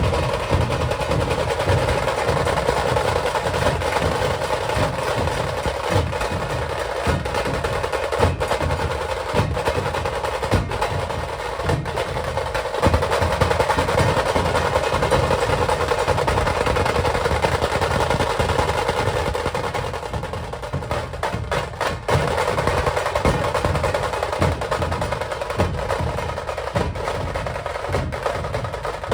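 Maharashtrian dhol-tasha ensemble playing: big dhol drums beating under fast, dense tasha rolls. It eases briefly about two-thirds of the way through, with a few separate strokes, then picks up again.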